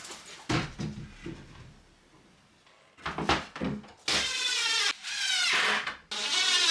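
Wooden knocks and clatter as flat-pack wardrobe panels are handled. About four seconds in, a loud, high, wavering voice-like sound starts, coming in abruptly chopped segments.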